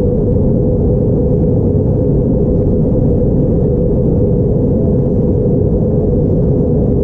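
Steady in-flight cabin noise of an Airbus A321neo, heard at a window seat beside its CFM LEAP-1A turbofan engine: a constant rush of engine and airflow with a steady hum.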